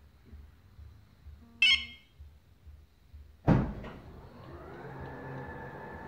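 BMW 7 Series (F01/F02) engine started remotely. A short beep comes about one and a half seconds in. About three and a half seconds in the engine cranks and fires with a sudden loud burst, then settles into a steady idle.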